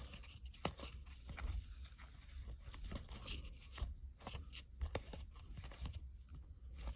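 Baseball trading cards being handled and slid one behind another: faint, irregular clicks and short papery rustles.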